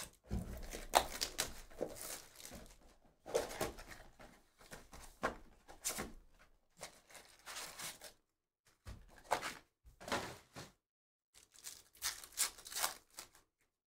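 Cardboard trading-card hobby box being torn open and its flaps pulled back, then a foil card pack ripped open: bursts of tearing and crinkling with short pauses between them.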